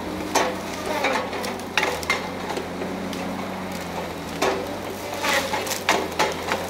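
Tigercat 870C feller buncher's diesel engine running steadily, with several sharp cracks and snaps of pine branches and wood as the machine cuts and handles trees.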